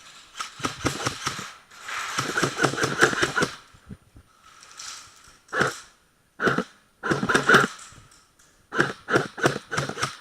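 Airsoft guns firing: rapid runs of sharp shots and a couple of single shots, with the longest burst about two seconds in.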